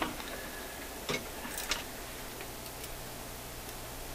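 A few light, irregular clicks over a steady low electrical hum. The hum grows stronger after a click about a second in.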